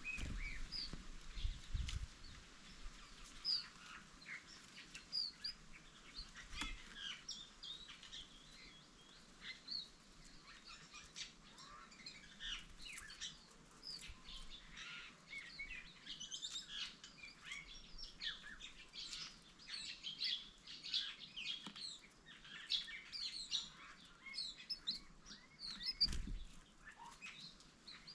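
Green-backed white-eyes (Zosterops xanthochroa) giving many short, high chirps and twitters, busiest in the second half. A few dull low thumps are mixed in, the loudest near the end.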